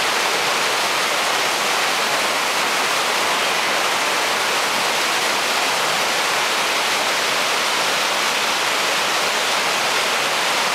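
Shallow mountain stream rushing and splashing over boulders in a narrow rock gorge: a steady, even hiss of running water.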